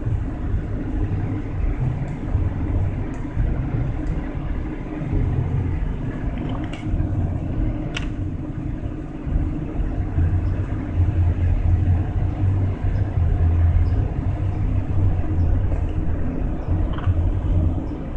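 Steady low rumble that swells in the middle, with a few sharp clicks, the clearest about eight seconds in.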